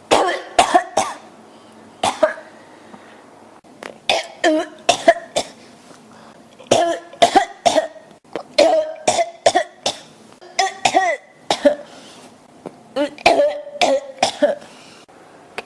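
A person coughing in repeated fits: short, sharp coughs in clusters of two to four, some of them throaty and voiced, with brief pauses between the fits.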